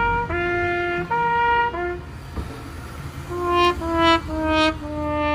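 Brass-sounding sound-effect music: a hi-lo two-tone siren figure, two notes alternating about every 0.8 s, that breaks off about two seconds in. About a second later comes a falling 'wah-wah-wah-waaah' sad-trombone sting: three short descending notes, then a long held low note.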